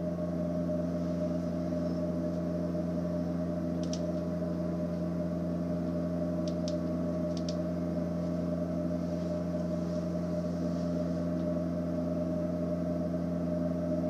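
Steady drone of a Redbird FMX flight simulator's simulated single-engine piston aircraft (set up as a Cessna 172) holding constant power, heard inside the simulator cockpit. A few faint clicks come partway through.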